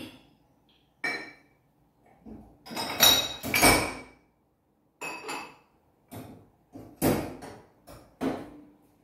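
Drinking glasses clinking and knocking as they are handled and set down at a kitchen sink: a run of separate glassy clinks, some ringing briefly, loudest about three to four seconds in.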